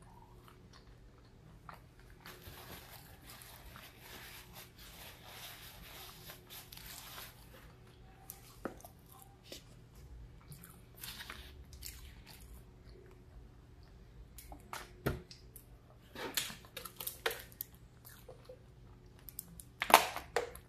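Close-up chewing and crunching of fried fish and fries, with scattered small clicks of mouth and teeth. A few sharper sounds come near the end, the loudest just before it ends, over a faint steady low hum.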